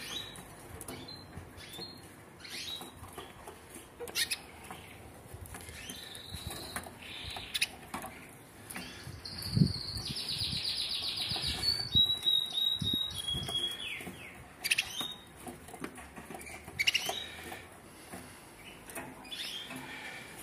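Intensive red agate canary singing in its cage: scattered chirps, then a loud, fast trill about ten seconds in followed by a few steady whistled notes. Light clicks and taps from the caged birds come in between.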